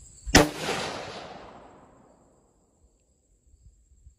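A single shot from a James River Armory Gallant, a Galil-pattern 5.56 mm rifle, about half a second in, followed by a long echo that fades over about a second and a half.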